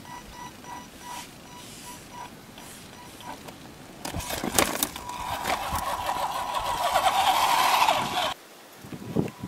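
Axial SCX10 RC crawler's electric motor and gearbox whining under load, with tyres scrabbling on rock, starting about four seconds in and cutting off suddenly near the end. Before it, a faint, regular chirping at one pitch.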